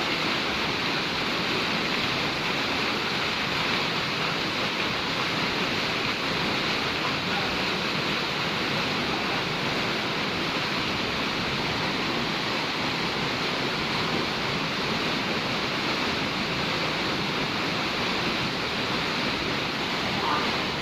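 A waterfall's falling water rushing steadily, an even, unbroken noise.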